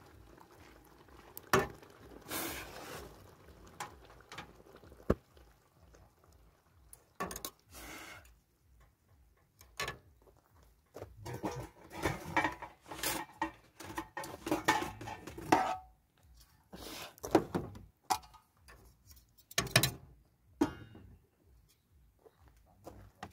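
A serving utensil scrapes and knocks against a large pan and metal mess tins as curry is dished out. Irregular clinks and clatters, with a few sharp knocks and a busier stretch of clattering about halfway through.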